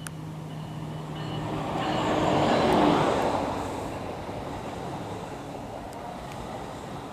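NJ Transit ALP-45DP dual-mode locomotive passing close on diesel power, loudest about three seconds in as it goes by. After it, the bilevel passenger cars roll past on the rails, more quietly and steadily, as the train slows for its station stop.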